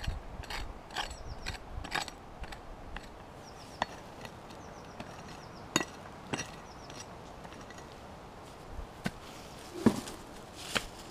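A prospector's pick chopping and scraping into dry, rocky soil while digging out a metal-detector target: a quick run of strikes about two a second at first, then slower, scattered strikes.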